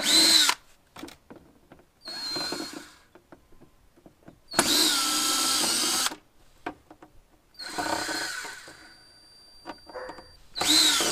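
Cordless drill backing out the screws of a hot tub's equipment access door, running in five short bursts, the middle one the longest at about a second and a half.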